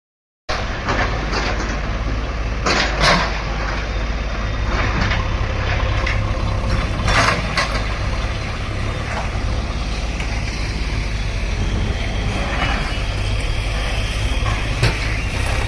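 A bulldozer's engine runs steadily with a low rumble, with a few sharp knocks and clanks about 3 and 7 seconds in.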